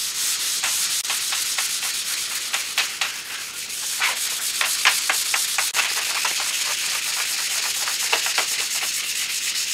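Hand block sanding dry on the primed roof of a 1969 Chevy Chevelle: sandpaper on a block rasping over the primer in quick back-and-forth strokes, a steady scratchy hiss. This is the block-sanding stage that levels the primer before paint.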